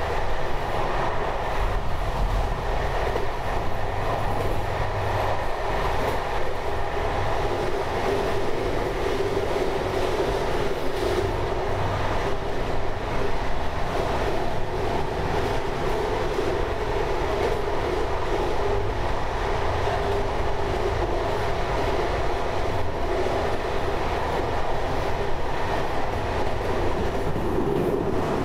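Train running steadily along the track: a continuous rumble of wheels on rails with a steady hum, unbroken throughout.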